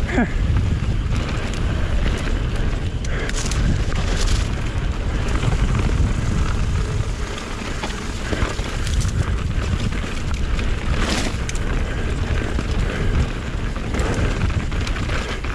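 Mountain bike descending an enduro race stage: a steady low rumble of wind buffeting the microphone, with occasional knocks and rattles from the bike over rough ground.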